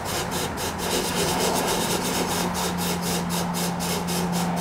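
Red-hot 4140 steel chisel tip sizzling and crackling steadily as it is quenched in a bucket of water to harden it, with a steady low hum underneath.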